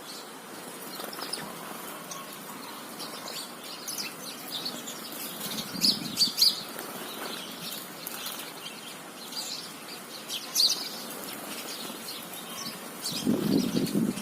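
House sparrows chirping in short, scattered high chirps, with a louder cluster about six seconds in and another near eleven seconds. A low rustle or flutter comes in about a second before the end.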